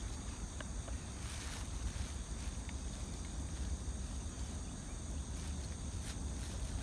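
Outdoor background of steady high-pitched insect chirring over a low rumble, with a few faint clicks.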